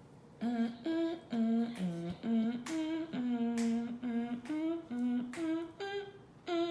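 A woman humming a tune: a string of about a dozen short held notes stepping up and down in pitch, starting about half a second in.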